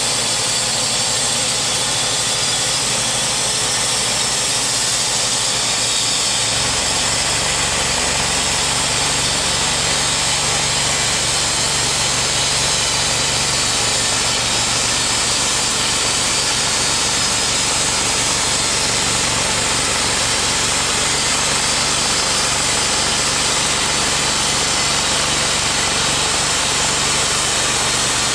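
Timberking B-20 portable bandsaw mill sawing through a white oak log: its engine runs steadily under load as the band blade cuts along the log. A deeper hum joins about six seconds in and holds steady.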